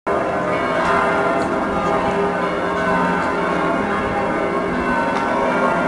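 The bells of Munich's Frauenkirche pealing, several large church bells ringing together in a continuous, dense overlapping clang.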